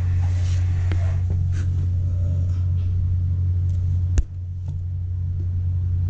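Steady low machinery hum, with a single sharp click about four seconds in, after which the hum briefly drops and then recovers.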